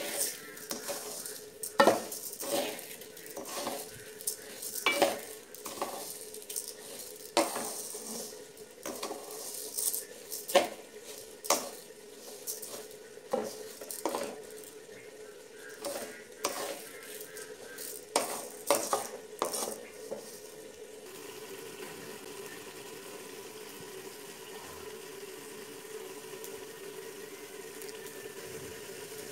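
Spatula scraping and knocking against a metal pan as raw rice is stirred and fried, with a light sizzle under the irregular strokes. About twenty seconds in the stirring stops, and a steady bubbling from a pot of meat simmering in its liquid takes over.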